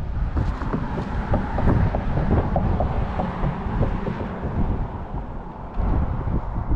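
Strong wind buffeting the microphone, a steady low rumble that rises and falls with the gusts, with a run of light ticks for a couple of seconds near the start.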